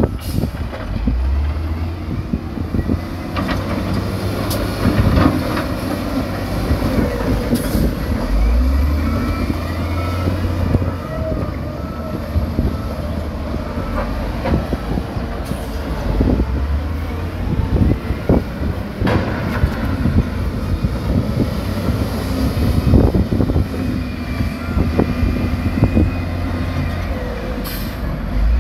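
Heavy diesel earthmoving machinery working: a steady low engine rumble with frequent metallic clanks and knocks.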